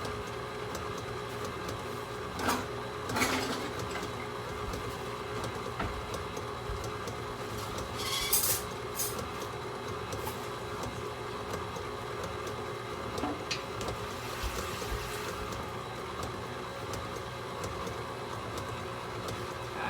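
Electric mixer running steadily, beating yellow cake batter in a bowl. There are a few sharp knocks about two and a half, three and eight seconds in.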